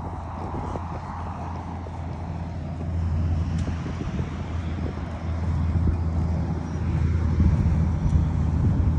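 Wind buffeting the microphone as a low, gusty rumble, growing louder about three seconds in and again near the end.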